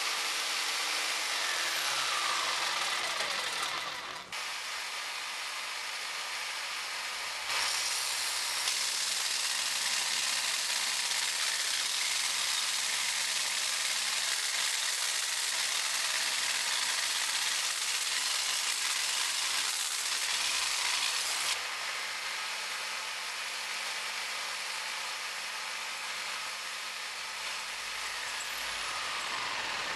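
Makita jigsaw mounted upside down under a table attachment, running steadily with its blade cutting wood and then thin sheet metal. The sound changes abruptly a few times.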